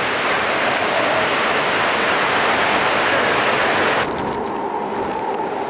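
Hurricane-force wind driving rain and spray over choppy harbour water: a loud, steady rush of noise. It changes abruptly about four seconds in to a duller, lower wind noise.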